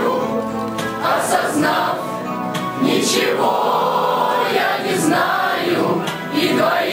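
A group of voices singing a song together in chorus, with musical accompaniment.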